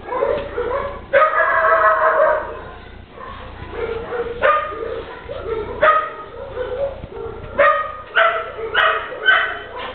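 A dog barking: one long drawn-out call about a second in, then a run of short sharp barks that come closer together near the end.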